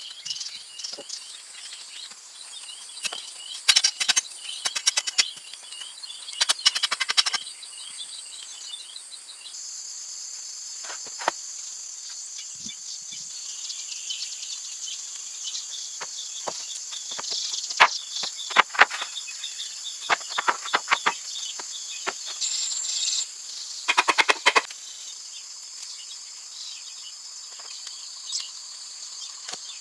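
Outdoor ambience of steady high-pitched insect trilling and bird calls, broken several times by clusters of short, sharp clicks and knocks.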